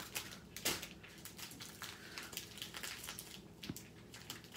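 Small plastic bags of diamond painting drills being handled and set down on the canvas: light crinkling and rustling with many small clicks, one a little louder under a second in.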